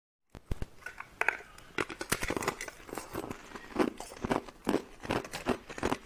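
Hard, clear ice figures cracking and clinking as they are handled, a quick, irregular run of sharp cracks and crunches.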